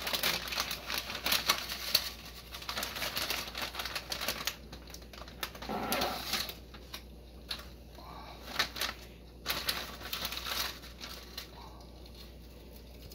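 Thin plastic bag of dried bihon noodles crinkling as it is handled and the noodle block is pulled out of it. The crinkling is busiest in the first few seconds, then turns sparser and quieter.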